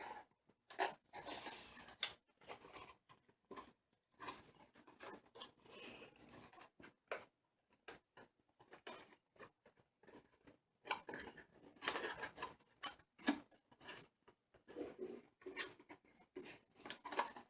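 Packaging of a boxed CPU being handled as the processor is taken out: irregular small clicks, rustles and scrapes, with a few sharper clicks about 12 and 13 seconds in.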